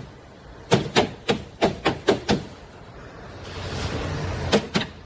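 Hammer blows on the truck's sheet-metal bedside as it is knocked free: about six sharp strikes, roughly three a second, then a short hiss and two more strikes near the end.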